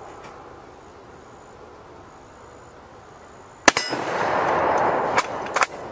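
A single 8mm Mauser rifle shot about two-thirds of the way in, followed by a loud rolling echo and a few sharp metallic clacks near the end.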